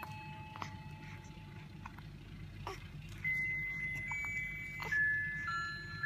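A simple electronic toy tune of single held notes plays, while a baby hiccups three times, about two seconds apart.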